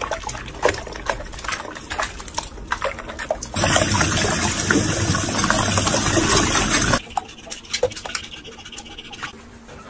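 Water splashing and running from a tap in a sink while a small puppy is washed, with a louder stretch of water noise in the middle that stops abruptly.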